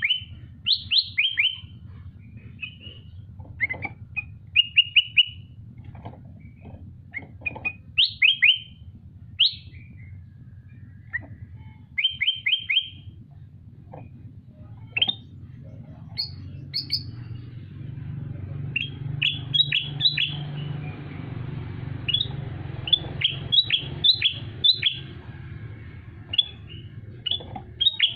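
A songbird calling in short runs of quick, sharp notes, each note dropping in pitch, usually three or four to a run, with pauses between runs.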